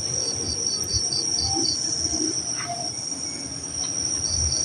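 Night insects: crickets trilling, a steady high-pitched tone, with another insect chirping in a quick series of about five chirps a second near the start and again near the end. Low rumbling noise runs underneath.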